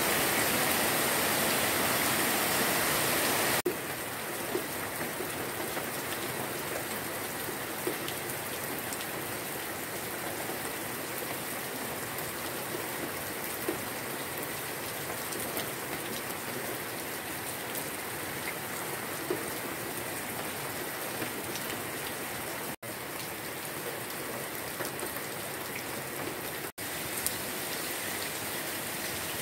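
Heavy rain falling steadily on trees and grass, an even hiss. It is louder for the first few seconds, then steadier and a little softer, with two brief dropouts near the end.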